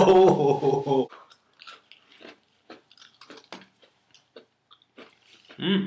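Close-up crunching and chewing of an Oreo cookie: a run of short, crisp crunches spaced irregularly, after a piece of music stops about a second in.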